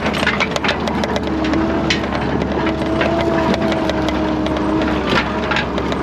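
Skid steer loader running steadily while driving, heard from inside the cab: a constant engine drone with a steady drive whine over it, and frequent irregular rattles and knocks from the carried steel-and-wood rack and the machine jolting over the gravel road.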